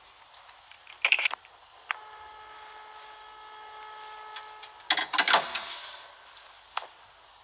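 Payphone handset: a quick cluster of clicks about a second in, then a click and a steady tone from the receiver for about three seconds. Near five seconds the handset rattles and clacks as it is hung on the hook, with one last click near the end.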